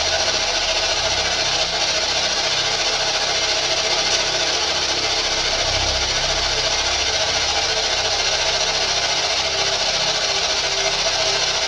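Steady, even static hiss with no distinct sounds in it, as from a boosted recording or radio static while listening for an answer; a faint steady hum comes in toward the end.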